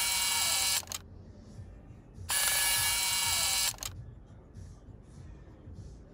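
Two identical bursts of loud hissing noise, each about a second and a half long, one at the start and one about two and a half seconds in. The exact repeat marks them as an added editing sound effect. Between the bursts there is only faint low room sound.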